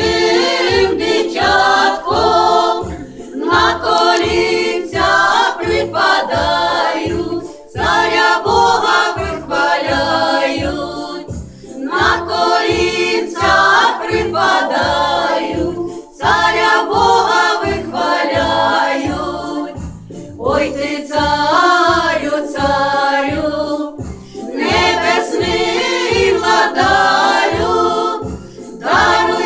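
A small choir singing a Ukrainian Christmas carol in several voices, over accompaniment with a steady low beat.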